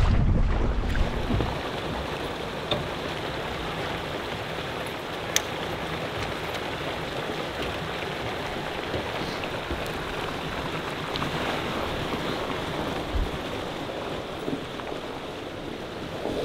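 Wind buffeting and waves against an inflatable boat for the first second and a half, then a steady rushing hiss with a few faint ticks from a fish-stocking truck running water out through its discharge hose.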